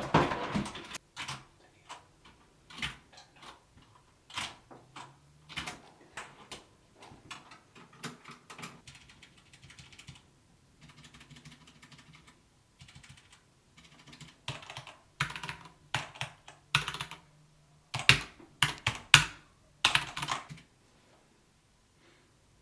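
Typing on a mechanical keyboard with Cherry MX Brown tactile switches, the Durgod K320: uneven runs of keystrokes with short pauses, louder clacks between about 15 and 20 seconds in, stopping shortly before the end.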